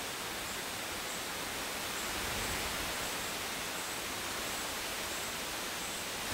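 Steady, even outdoor background hiss with faint rustling in the woods, and a faint high-pitched buzz that comes and goes.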